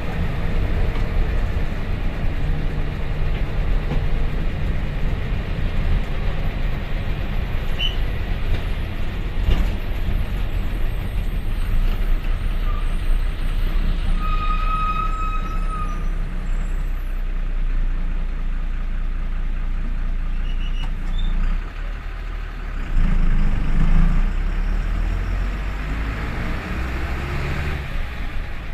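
Bus diesel engine running under load, heard from the driver's cabin, with steady road noise. A short high squeak sounds about halfway through. Just after 21 s the engine briefly drops off, then comes back stronger, and near the end its pitch rises as it picks up speed.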